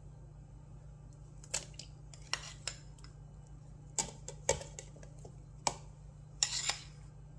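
A metal spoon scraping and knocking against a bowl and a plastic blender jar as scoops of vanilla ice cream are dropped in: a handful of short clicks and scrapes a second or so apart, the busiest cluster near the end. A faint steady low hum runs underneath.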